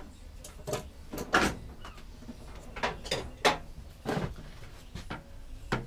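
Irregular clicks and knocks of hand tools and metal parts being handled during work on a lawnmower's wheels, about eight sharp knocks spread unevenly over a few seconds.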